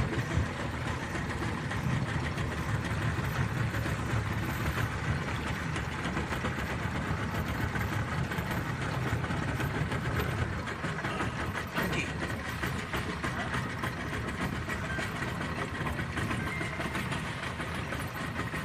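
Outboard motor of a small wooden river boat running steadily as the boat travels up a mangrove creek.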